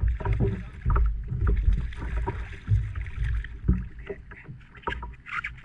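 Wind rumbling on the microphone, with irregular knocks and clunks of gear against a fishing kayak as the long-handled landing net is lifted and swung.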